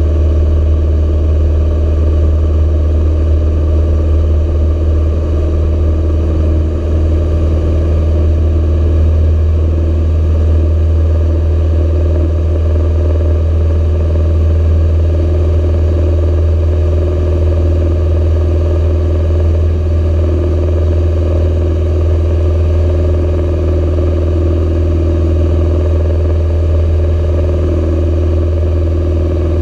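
Socata TB9 Tampico's four-cylinder Lycoming piston engine and propeller at full takeoff power, a loud steady low drone heard from inside the cockpit during the takeoff roll and initial climb.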